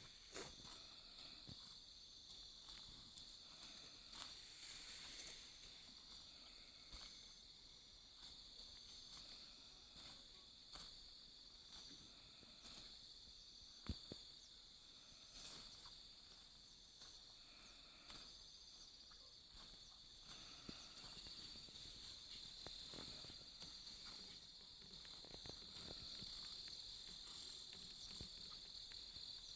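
Faint outdoor insect chorus: crickets giving a steady high buzz throughout, with scattered short snaps and crackles, the loudest about halfway through.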